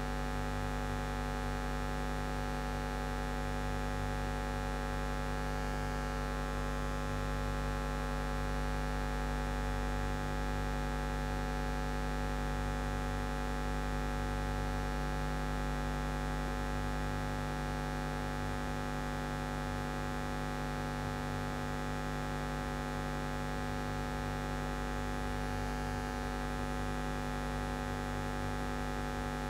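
Steady electrical mains hum and buzz on the audio line, unchanging in level and pitch, with nothing else rising above it.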